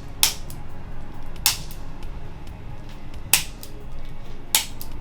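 Four sharp clicks during a chiropractic adjustment, spaced a second or two apart.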